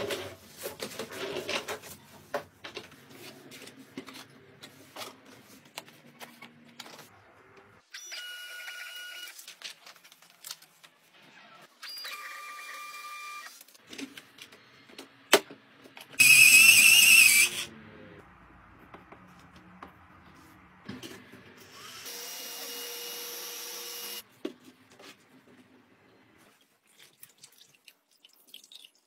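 Household gadgets being handled, with clicks and knocks between four short runs of a small electric motor whirring for about two seconds each. The run about sixteen seconds in is much louder and harsher than the others.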